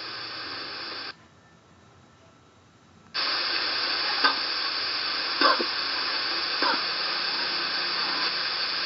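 Steady hiss of recording noise that starts suddenly about three seconds in, after a short near-silent gap. Three faint short sounds come about a second apart inside it.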